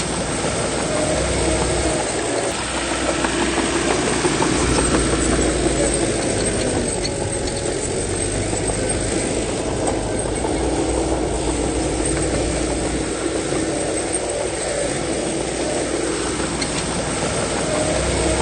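Heavy diesel engine of earthmoving machinery running steadily, its note rising and falling a little as the load changes, over a low rumble.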